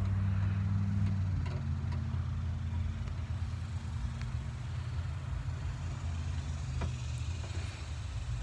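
Steady low engine hum, like a vehicle idling, with a couple of faint clicks of a screwdriver against sheet metal.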